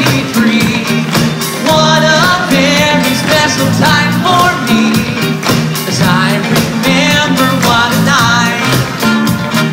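Live band with electric guitar playing an upbeat 1960s-style rock and roll number with a steady beat, while men sing the melody into microphones over the stage sound system.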